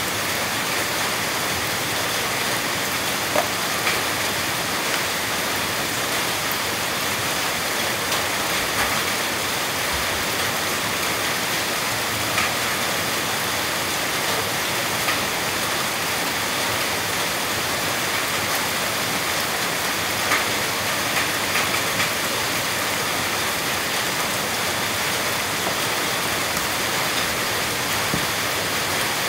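Steady rain falling, an even hiss with a few faint taps here and there.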